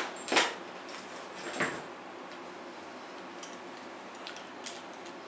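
Handling knocks and clicks of the Walkera FPV video goggles and their hard carrying case as they are taken out and the goggle arms are opened: two louder knocks in the first two seconds, then a few light clicks, over a steady hiss.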